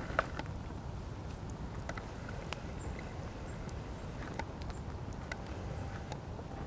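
Wood fire burning with a terry toweling robe on it, crackling with irregular small pops and one sharper snap near the start, over a steady low rumble.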